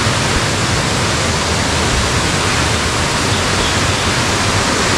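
Rushing river water: a steady, loud hiss of fast-flowing water.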